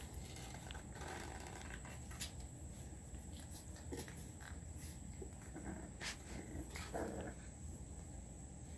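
Young puppies making faint, soft whimpering and grunting noises, loudest about a second in and again near the end, with a few light clicks and shuffles in between.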